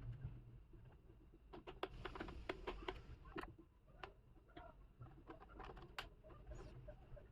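Faint, irregular small clicks and scrapes of a screwdriver working the screws out of a laptop's bottom panel.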